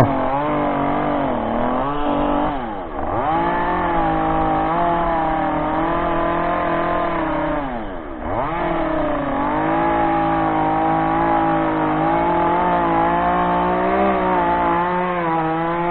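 Eacho T2511 two-stroke chainsaw running at high revs while cutting. Its pitch drops and recovers twice, about 3 and 8 seconds in.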